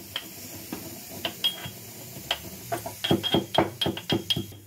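Roasted cumin seeds being crushed by pounding: a run of sharp knocks, each with a short ringing note, coming faster and louder from about three seconds in.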